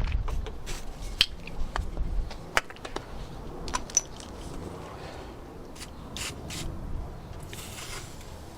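Hand work on car door hardware: scattered small clicks, taps and scrapes of screws and lock parts being handled, with a low rumble under the first couple of seconds and a short scrape near the end.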